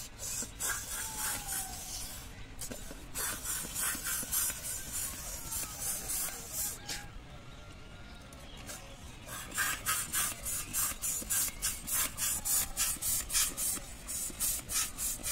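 Hand balloon pump pushing air into a latex balloon, each stroke a short hiss. The strokes come sparsely in the middle, then quicken to about three a second for the last few seconds.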